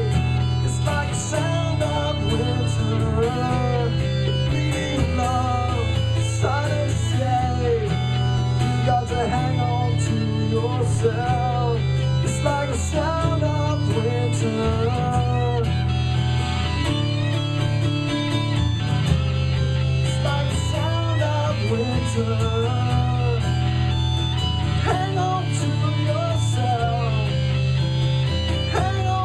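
Rock band playing an instrumental stretch live: guitars over held low bass notes that change every couple of seconds.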